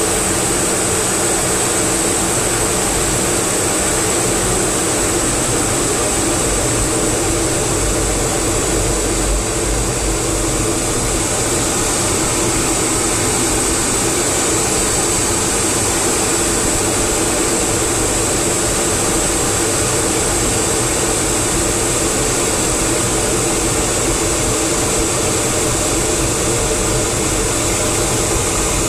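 Steady, loud noise inside an F/A-18 Hornet's cockpit in flight: the rush of its twin jet engines and airflow, with a thin high whine running over it.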